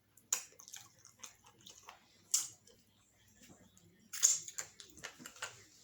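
Close-up eating sounds: chewing and wet mouth smacks, with a few sharp clicks, the loudest a little over two seconds in and about four seconds in.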